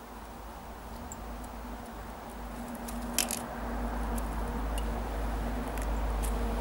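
A training clicker gives one sharp click about three seconds in, as the pony noses the basket handle, followed by a few fainter ticks. A low rumble grows louder through the second half.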